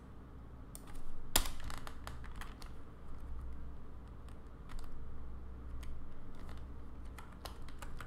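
Typing on a computer keyboard: irregular key clicks, with one louder clack about a second and a half in, over a faint low hum.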